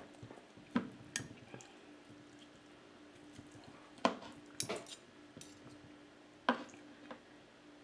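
Metal spoon and fork clinking and scraping against a plate while cutting up food, in a handful of scattered sharp clicks, over a faint steady hum.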